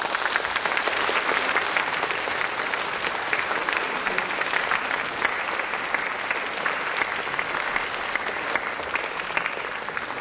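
Concert audience applauding: dense, steady clapping that eases slightly toward the end.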